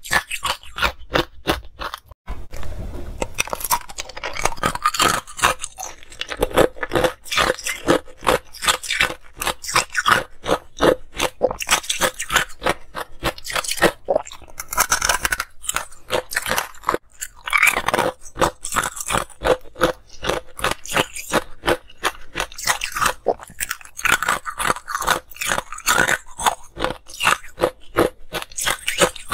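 Ice cubes being bitten and chewed close to a microphone: a dense run of sharp, crackling crunches, several a second, with a brief break about two seconds in.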